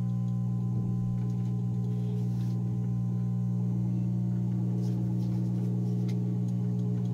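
Hot-air rework station blowing while it heats a phone's glass at about 400 degrees, a steady low hum with a few faint ticks.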